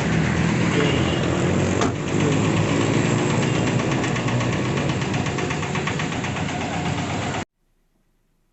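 An engine running steadily at idle, cutting off abruptly near the end.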